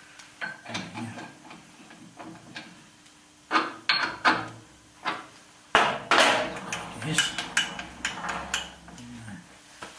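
Steel parts clinking and knocking sharply against each other as a workpiece and a length of copper wire are set in a milling-machine vise. The knocks are irregular, with a busy cluster a little past halfway.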